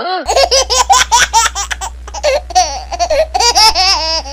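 A high-pitched, child-like voice laughing in a quick run of short ha-ha's, over a steady low hum.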